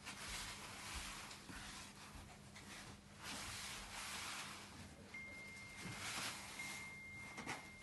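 Chiffon saree fabric rustling and sliding as hands spread it out, in soft swells over a faint low hum. From about five seconds in, a thin steady high-pitched tone sounds as well.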